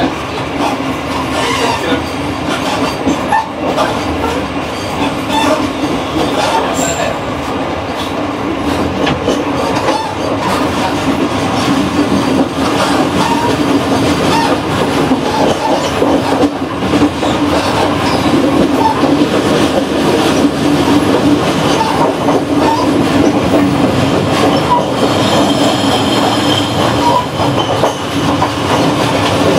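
Running noise of the KA Progo passenger train, heard from inside its vestibule while in motion: a loud, steady rumble of wheels on rail with scattered clacks.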